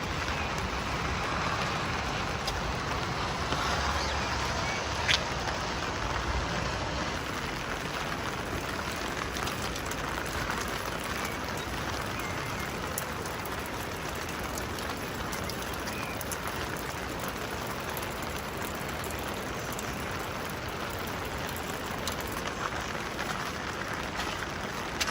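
Steady rain falling, with scattered drips and ticks of drops striking nearby surfaces and one sharper tick about five seconds in.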